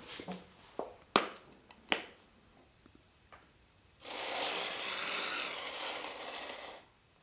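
A ceramic plate set down on wood with two sharp knocks, then scraped steadily across the wooden surface for nearly three seconds as it is pushed along, stopping abruptly.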